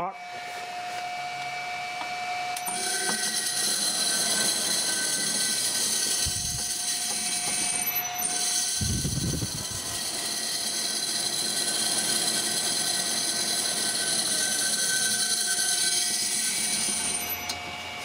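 Simpson washing-machine three-phase motor running on a variable frequency drive: a steady electrical whine made of several high tones, which come in about three seconds in and stop shortly before the end. Two dull bumps come around the middle. The owner reckons the motor needs new bearings.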